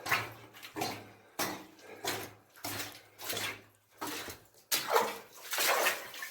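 Footsteps wading through water in a flooded mine tunnel: a splash and slosh with each stride, about one to two steps a second.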